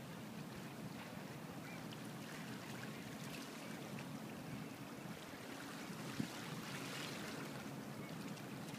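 Faint, steady low rumble of waterfront ambience. A soft hiss swells briefly about seven seconds in, and there is a single small knock a little past six seconds.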